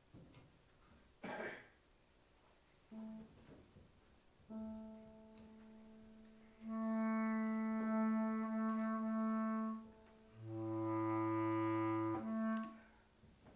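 Bass clarinet playing a few long held notes, the last but one lower than the rest, after a short hiss of air. The piano is not playing.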